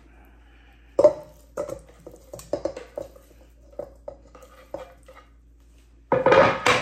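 Raw chicken pieces being scraped off a wooden cutting board into a stainless steel mixing bowl: a knock about a second in, then a run of soft thuds and clinks with the metal bowl ringing faintly. A louder clatter comes near the end as the board is put down.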